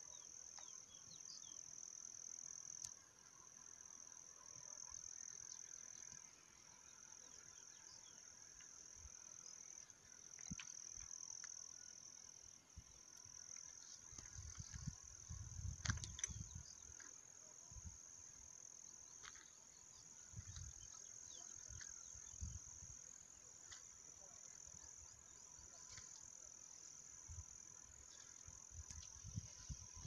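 Faint, steady, high-pitched trilling of crickets, with a few low rumbles on the microphone about halfway through and again near the end.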